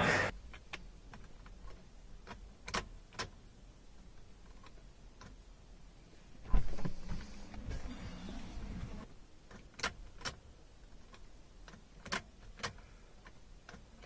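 Faint clicks from the ignition key being turned in a Holden Captiva, three of them in pairs about half a second apart, with a knock and rustling handling noise about six and a half seconds in. No engine cranks: the intermittent no-start fault, in which the starter is not engaging at all.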